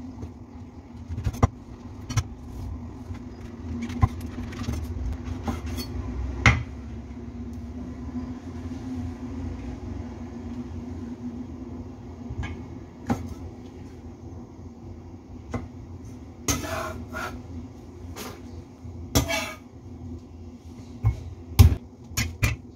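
Chinese cleaver chopping on a thick wooden chopping board: irregular knocks as beech mushrooms and other ingredients are cut, and a couple of longer scrapes near the end as the blade gathers the pieces. A steady low hum runs underneath.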